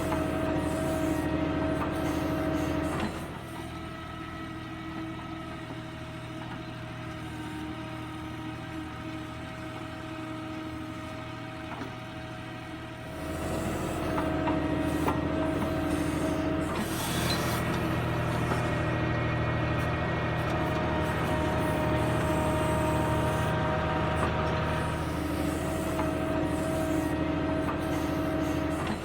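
Diesel tractor engine running steadily under work, revving louder for the first few seconds, dropping back to a lower run, then rising again about halfway through and holding there.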